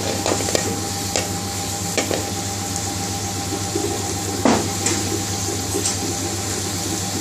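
Chopped garlic sizzling in hot oil in an aluminium pan over a gas flame: a steady hiss with scattered pops and crackles, the loudest pop about four and a half seconds in, over a steady low hum. The garlic is frying towards a light golden brown, the tarka stage of the dhal.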